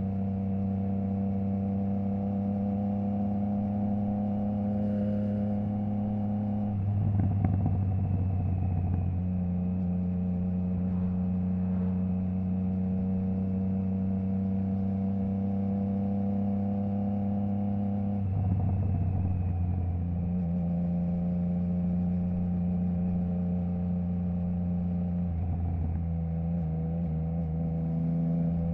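Triumph Trident 660's inline three-cylinder engine running through a baffle-less Zard stainless full exhaust system, its note holding steady at an even engine speed. Three times it breaks into a brief louder, rougher spell and settles again at a slightly different pitch.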